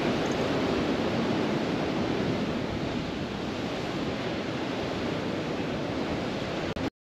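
Ocean surf washing against a rocky sea cliff, a steady rushing with wind buffeting the microphone. The sound cuts off abruptly near the end.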